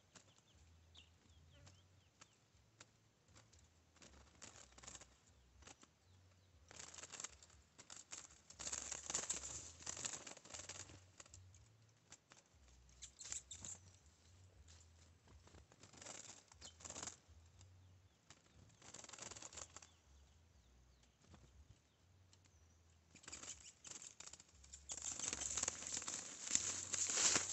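A curió's wings fluttering and beating against the bars of a trap cage, in irregular bursts, with the longest and loudest burst near the end.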